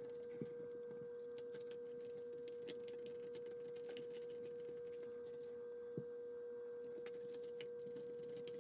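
A steady, faint hum at one middle pitch, with a few faint clicks as small screws are driven into the plastic case of a microchip scanner with a hand screwdriver; one slightly sharper click about six seconds in.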